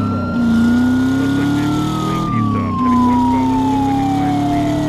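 A police siren wails in one long slow cycle, rising, holding and then slowly falling, and begins to rise again near the end. Under it a car engine accelerates from inside the cabin, its pitch climbing steadily and dropping back twice.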